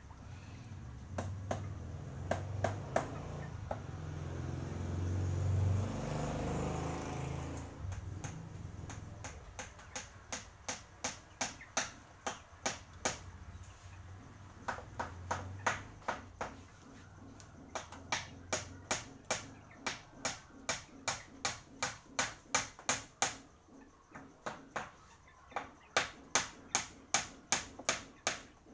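Hammer tapping nails into a bamboo slat panel: runs of sharp taps, about two to three a second, with short pauses between runs. A low rumble swells and fades during the first several seconds.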